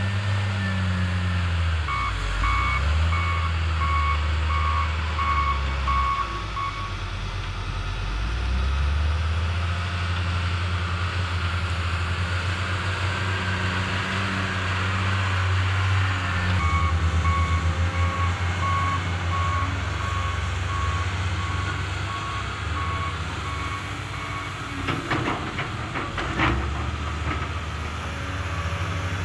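Diesel engines of a John Deere 624J wheel loader and a hydraulic excavator running and revving, with a reverse alarm beeping in two runs of a few seconds each, about two seconds in and again past the middle. Near the end come a few clunks as the excavator bucket dumps soil.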